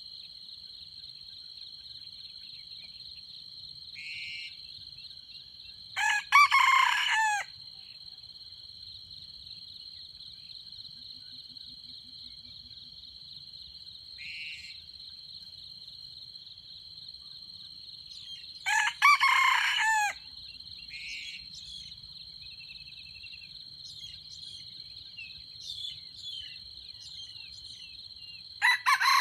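Red junglefowl roosters crowing three times, about six seconds in, around nineteen seconds and again at the very end, each crow lasting about a second and a half. A steady high insect buzz runs underneath, with a few short chirps between the crows.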